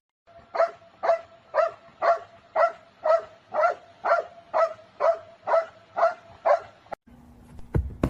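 A dog barking in an even rhythm, about two barks a second, thirteen barks in all, stopping about six and a half seconds in. A low thump follows near the end.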